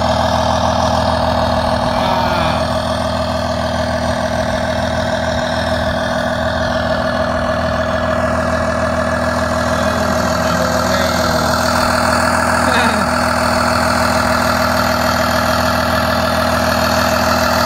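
Truck engine idling steadily, holding one even speed with no revving.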